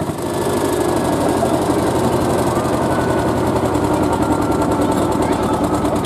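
Small vintage tractor's diesel engine working under heavy load while pulling a sled, with a fast, even knock of firing strokes. Just as it begins the note shifts and gets a little louder, then holds steady.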